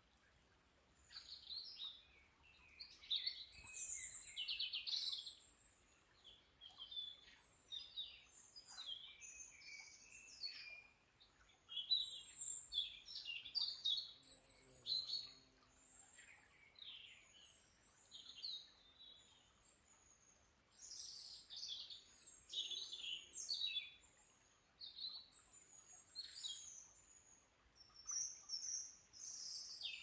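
Several small songbirds singing and calling at once: overlapping bouts of quick chirps and trilled phrases, with short pauses between bouts.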